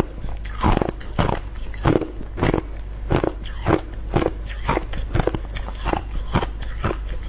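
Hard clear ice being bitten and chewed, cracking and crunching between the teeth in repeated sharp crunches, about two a second.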